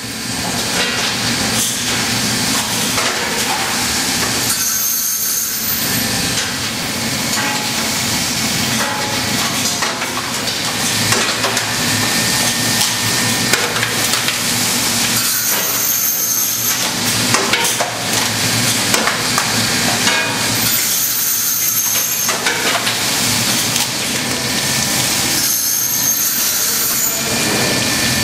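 Raw crab slaughtering machine running in a processing plant: a loud, steady hissing machine noise with scattered knocks and clatter, easing off briefly every several seconds.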